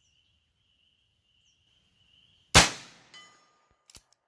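A Heritage Rough Rider .22LR revolver fires a single sharp shot, and about half a second later the steel gong 100 yards away rings with a short metallic clang as the bullet strikes it. Two faint clicks follow near the end, and a steady high insect buzz runs until the shot.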